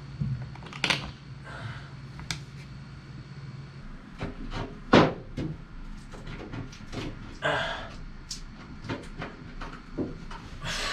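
Scattered knocks and clunks of varying loudness, the loudest about five seconds in, over a steady low hum that stops about four seconds in.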